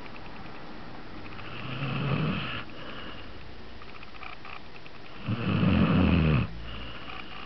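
Snoring: two drawn-out snores about three and a half seconds apart, the second louder and longer.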